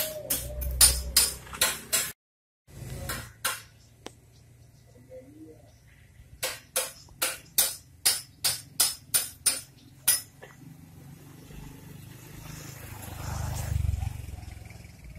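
Sharp knocks repeating at about three a second, broken off twice and resuming, like hammering or striking on metal. A low rumble swells and fades near the end.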